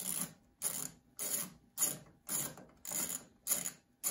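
A ratcheting hand tool worked back and forth at a boiler gas valve, about seven strokes at roughly two a second, each a short burst of clicking. It is unscrewing the cap that covers the valve's low fire adjustment screw.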